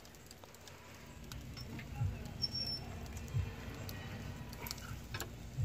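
Metal rotisserie spit with a whole chicken being turned slowly over charcoal, giving faint scraping and clicking from the rod in its supports, with three soft low thumps.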